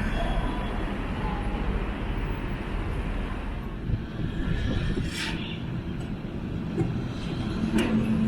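Street traffic: a steady rumble of passing vehicles, with a couple of short sharp knocks about five seconds in and near the end.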